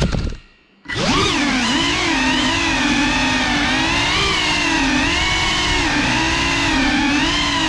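GEPRC FPV drone's brushless motors and propellers whining, the pitch wavering as the throttle changes. The motors drop out for about half a second near the start, then spin back up.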